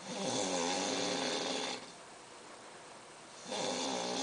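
Snoring: a long snore with a wavering pitch lasting almost two seconds, a pause of under two seconds, then the next snore starting near the end.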